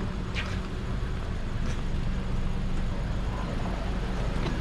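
Steady low rumble of outdoor background noise with a faint steady hum, and a few faint ticks.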